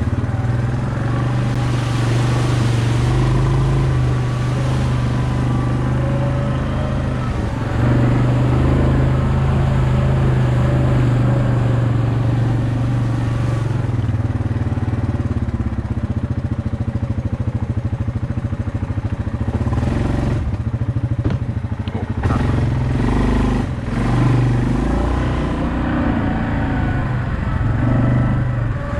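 2018 Yamaha Kodiak 700 EPS ATV's single-cylinder four-stroke engine running under varying throttle while being ridden, with a few brief knocks about two-thirds of the way through.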